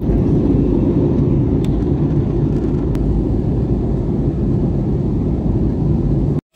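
Airliner cabin noise heard from a window seat: the steady low rumble of the jet engines and airflow during the approach to land.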